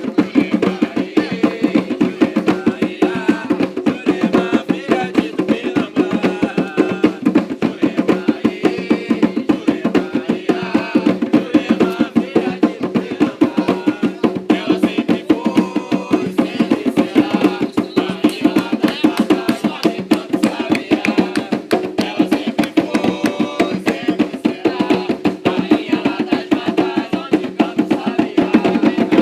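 Atabaque hand drums playing a fast, steady ponto rhythm for an Umbanda session.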